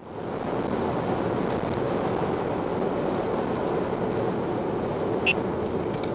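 Steady road and tyre noise inside a car cabin at motorway speed, with a couple of short high beeps near the end, which in this setting come from the Uniden R7 radar detector's alert.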